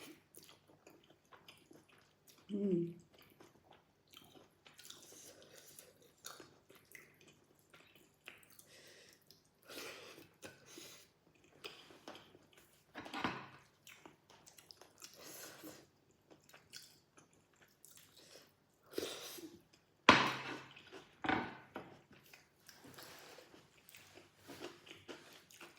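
A person chewing mouthfuls of food close to the microphone, in short irregular bursts of wet chewing and mouth sounds. A sharp click or tap stands out about twenty seconds in.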